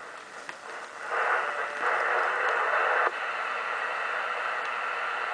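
Receiver static from the speaker of a RadioShack HTX-10 10-meter transceiver: an even hiss with no signal on it. It gets louder about a second in, drops back about three seconds in, and then holds steady, with a few faint clicks.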